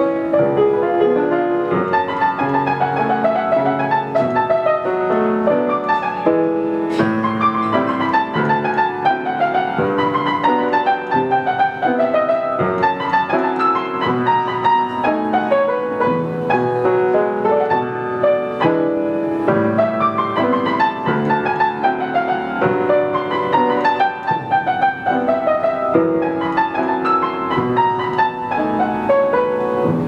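Solo grand piano, a 19th-century instrument, playing a lyrical romantic piece: cascading downward runs repeated over sustained chords.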